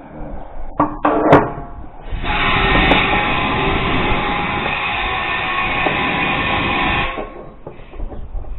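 Compressed air blown through an air nozzle into an Allis-Chalmers D19 tractor's emptied fuel tank, a steady hiss lasting about five seconds that starts a couple of seconds in, after a few clanks, and cuts off sharply. The air is flushing rust and dirt out of the tank through the sediment-bowl hole.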